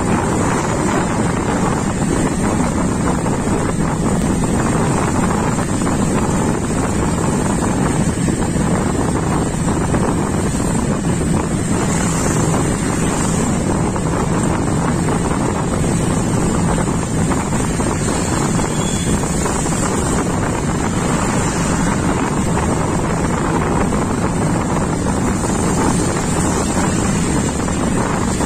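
Steady rain and traffic on a wet road: an even rushing noise that doesn't let up.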